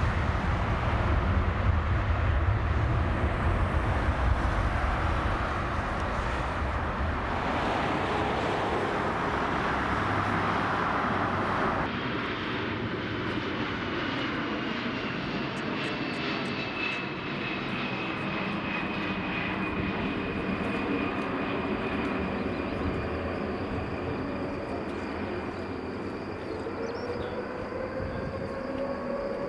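Rolls-Royce Trent 700 engines of an Airbus A330-300 at takeoff power, a deep rumble. After an abrupt cut, a Boeing 747-400 freighter's four jet engines whine on final approach, a high tone slowly falling. Rising tones come near the end as it touches down.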